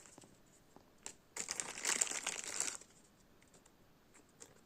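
Thin plastic poly bag around a diecast toy car crinkling as it is handled, for about a second and a half starting a second in, followed by a few faint ticks.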